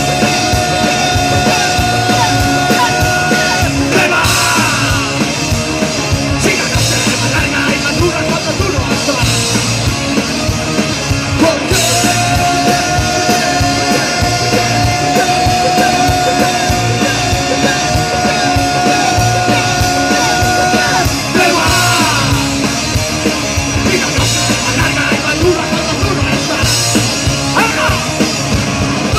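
Live punk band playing loud distorted electric guitars, bass and drums, with a singer shouting into a microphone. A steady high note is held for several seconds near the start, and again for about nine seconds from near the middle.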